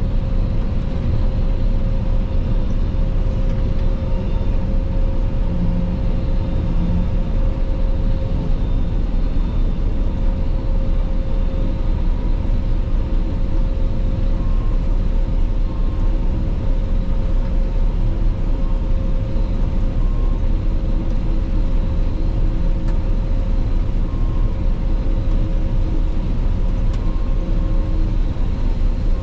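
Claas Lexion 480 combine harvester running steadily: a constant loud machine drone with a thin steady whine over it.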